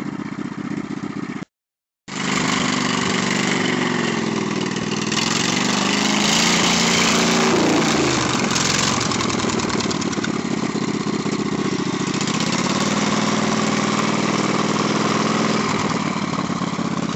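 Riding lawn mower engine running under load as the mower churns through mud, its pitch rising and falling with the throttle in the middle of the clip, then settling to a steady run. The sound drops out completely for about half a second, about a second and a half in.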